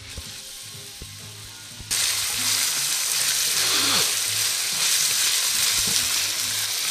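Soffritto of diced celery, carrot, onion and garlic frying in olive oil in a stainless steel wok and stirred with a spatula. A steady, dense sizzle starts suddenly about two seconds in, after a few faint knocks.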